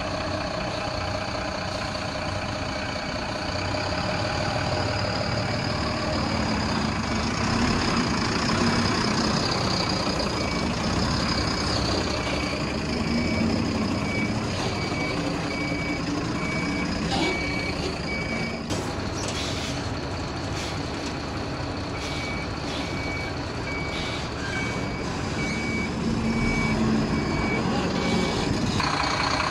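BharatBenz tanker truck's diesel engine running as it reverses, its reversing alarm sounding a steady series of short high-pitched beeps from about a third of the way in. The beeps pause once, with a short burst of hiss, then resume until near the end.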